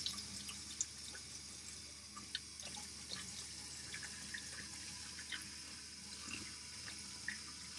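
Kitchen tap running steadily as electric whisk beaters are rinsed under it, with a few light clicks.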